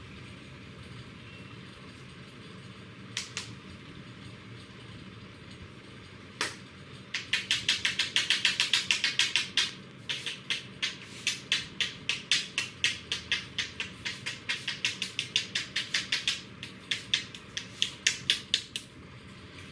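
Barber's hands tapping fast and rhythmically on a customer's head during a head massage, in quick runs of crisp slaps, about eight a second at first. A couple of single sharp clicks come a few seconds before the tapping starts.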